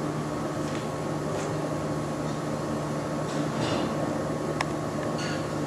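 Steady background hum of a running machine, with faint rustles and a light click about four and a half seconds in.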